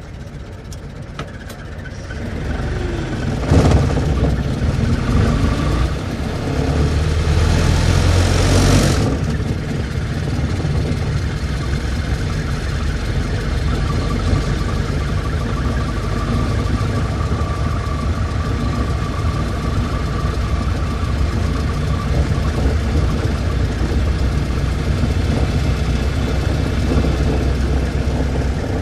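Old car's engine catching about three seconds in and revving for several seconds, then settling into steady running.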